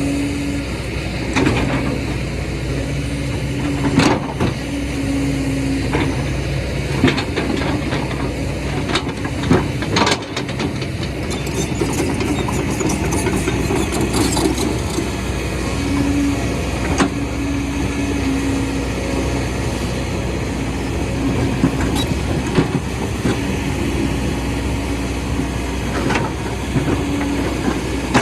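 Excavator's diesel engine running steadily, its tone rising and dropping back now and then, with several sharp knocks and clanks scattered through.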